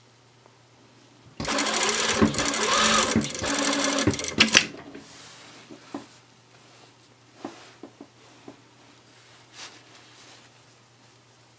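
Electric sewing machine stitching a short seam, starting about a second and a half in and running for about three seconds before stopping abruptly. A few light clicks follow.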